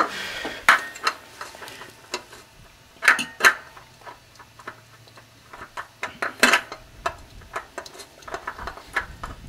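Irregular metallic clinks and knocks of an oil filter and hand tools being handled and fitted, with a few louder clacks scattered through.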